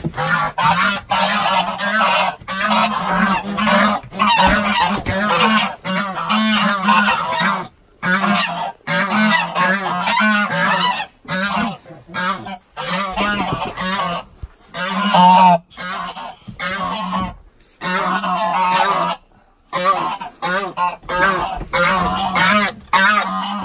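Several domestic geese honking loudly and repeatedly, call after call with only brief gaps, agitated as they are grabbed and caught by hand.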